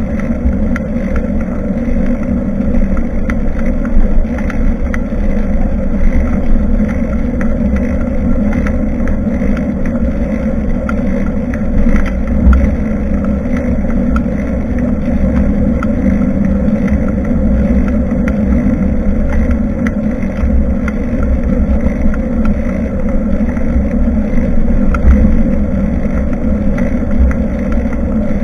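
Steady wind buffeting and road rumble from a moving bicycle, picked up by a bike-mounted action camera's microphone while riding.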